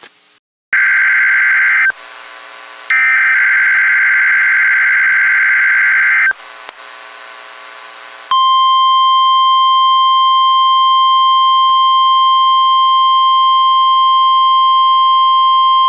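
NOAA Weather Radio emergency alert signal sent as a test. It begins with bursts of screeching SAME digital header data, one of about a second and a longer one of about three seconds. About eight seconds in, the steady, piercing 1050 Hz warning alarm tone begins and holds.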